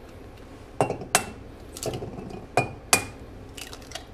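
Eggs being cracked against the rim of a metal mixing bowl: two pairs of sharp taps, each tap leaving a brief metallic ring, with a few fainter shell-and-bowl clicks between.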